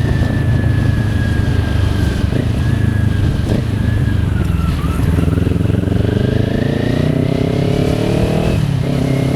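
Kawasaki Ninja 400's parallel-twin engine running under way. The revs climb steadily over about three seconds, then drop suddenly near the end as it shifts up a gear.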